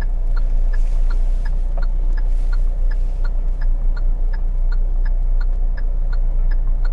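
Kia Seltos indicator ticking steadily in the cabin, about three clicks a second, over a low steady hum.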